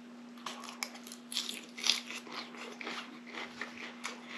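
A person biting and chewing a mouthful of salad topped with a fried egg, with irregular crunches of raw vegetables starting about half a second in.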